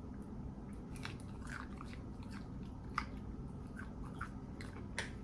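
A person chewing fried food with their mouth close to the microphone: small wet clicks and smacks, with a sharper click about three seconds in and another near the end, over a low steady hum.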